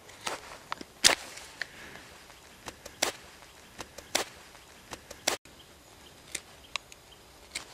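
Bushcraft knife blade shaving thin curls of wood for fire-starting: a dozen or so short, sharp scraping cuts at irregular intervals, the loudest about a second in.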